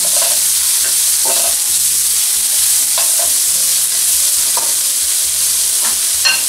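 Chopped onion, garlic and shredded carrot sizzling in hot oil in a sauté pan, with a slotted spoon stirring through them and now and then scraping or knocking against the pan.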